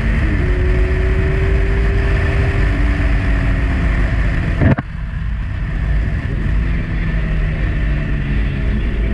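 Motorcycle engine running at road speed with wind rush. A sharp click comes about halfway through, after which the engine and wind run quieter.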